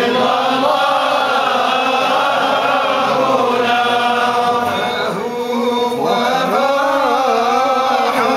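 A group of men chanting a devotional Islamic chant in unison through a mosque's microphones, in long drawn-out phrases that glide up and down in pitch, with a short break about five seconds in.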